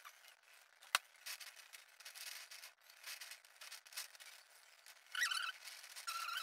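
Silicone spatula spreading and smoothing whipped cream over a sponge cake layer: faint soft scraping and rubbing, with a sharp click about a second in and a few short high squeaks near the end.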